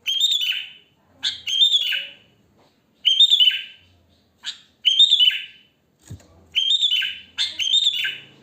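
Sooty-headed bulbul (kutilang) singing: short bubbly phrases about half a second long, repeated every one to one and a half seconds, each sliding down in pitch at its end.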